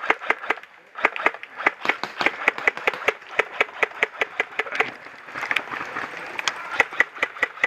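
Airsoft guns firing a rapid string of sharp single shots, several a second, with brief pauses about a second in and again around five seconds in.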